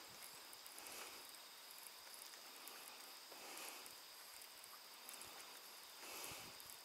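Faint steady hiss of rain falling on the lake surface, with a steady high insect trill from the shore.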